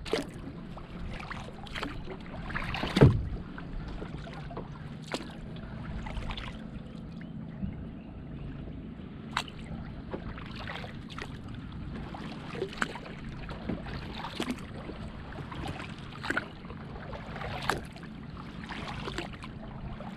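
Double-bladed kayak paddle strokes in calm lake water: the blades splash and dip in short sharp strokes every second or so. There is a louder knock about three seconds in.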